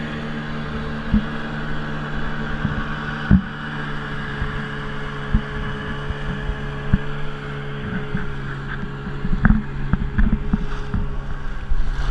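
Boat engine running at a steady speed, with scattered knocks and thumps on top that come thicker near the end.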